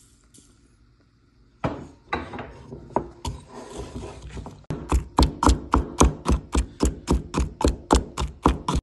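Wooden pestle pounding garlic cloves in a wooden mortar. A few uneven knocks come first, then from about five seconds in a steady, quick beat of about four strikes a second as the garlic is crushed to a paste.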